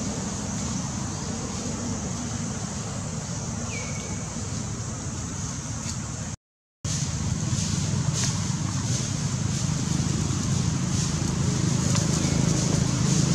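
Steady outdoor background noise: a low rumble with a high hiss over it, like wind and distant traffic. The sound cuts out completely for a moment about six and a half seconds in.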